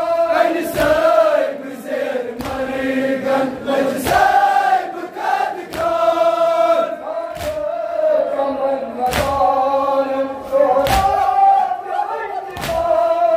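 A crowd of men chanting a Kashmiri noha, a Shia lament for Muharram, in unison. Sharp hand-on-chest slaps of matam land together on a steady beat, roughly every second and a half to two seconds.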